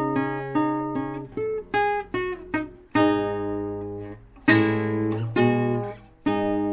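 Background music: acoustic guitar, a quick run of plucked notes followed by a few strummed chords left to ring.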